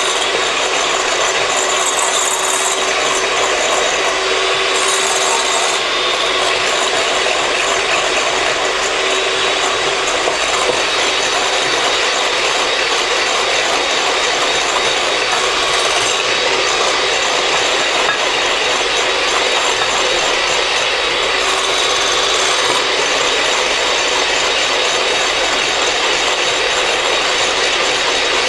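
Electric mixer running steadily, whipping eggs with vanilla into a thick batter.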